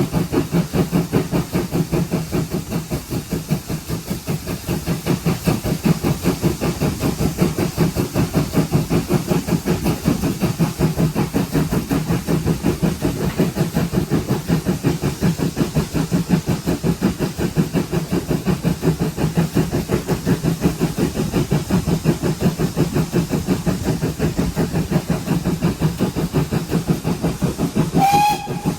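GWR 57xx-class pannier tank steam locomotive 7714 under way, with a fast, even beat over a steady low hum and steam hiss. A short whistle-like tone sounds near the end.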